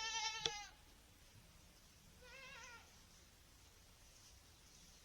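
Farm animals bleating: one loud, quavering bleat at the start, with a sharp click under it, and a fainter one about two and a half seconds in. The animals are calling as feeding time nears, as the owner takes it.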